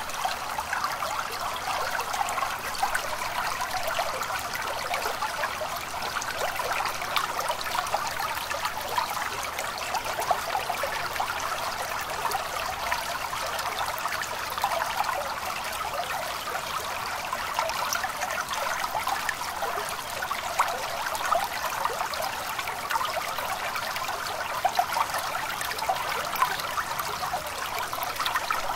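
A small stream babbling and trickling steadily, an even splashing water sound with no change throughout.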